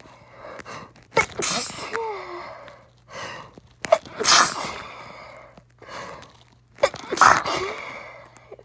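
A person sneezing three times, about three seconds apart, with softer breaths in between.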